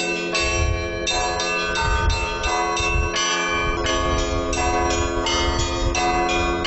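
Orthodox church bells ringing: several bells of different pitch struck in a quick, uneven rhythm, about three or four strokes a second, each stroke ringing on under the next.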